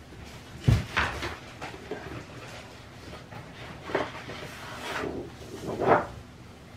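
A thump just under a second in, then paper wrapping rustling and crinkling as it is pulled off and bunched up, loudest near the end.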